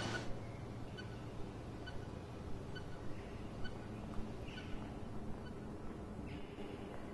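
Pedestrian crossing's audible signal ticking slowly, about one short tick a second, growing fainter just after the start.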